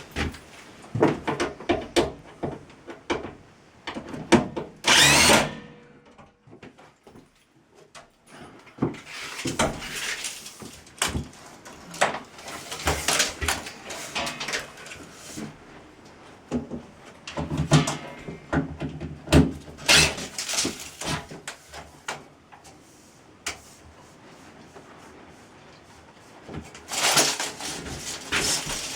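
Irregular knocks, bumps, clicks and scraping of a box and equipment being moved and handled by hand.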